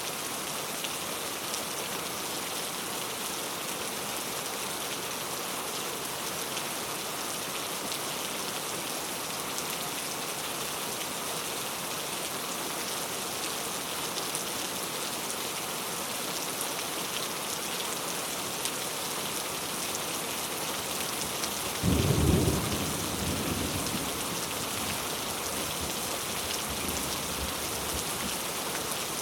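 Steady rain falling, with a single low clap of thunder about three-quarters of the way through that rumbles away over a few seconds.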